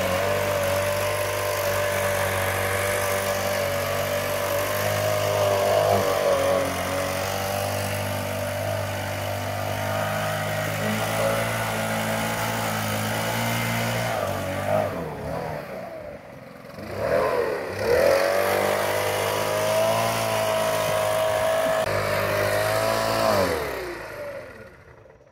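Gas backpack leaf blower running at high throttle with a steady engine hum and air rush. About 15 seconds in it drops to a lower speed, then revs back up a couple of seconds later. Near the end it winds down and falls away.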